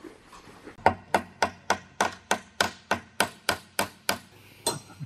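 Small ball-peen hammer tapping a metal piece held in a steel bench vise: about a dozen sharp metallic taps, evenly spaced at about three a second, starting about a second in.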